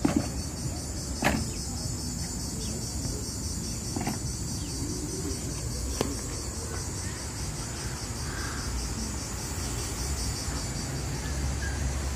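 Cicadas in the pine trees buzzing steadily with a fine, fast pulse, over a low rumble of road traffic. A few sharp knocks stand out in the first six seconds.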